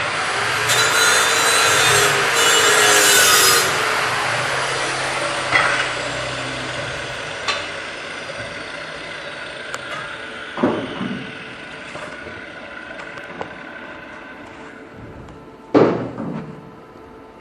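Angle grinder cutting metal for a few seconds, then its whine falling slowly as the disc spins down. A few clanks of metal follow, the loudest near the end.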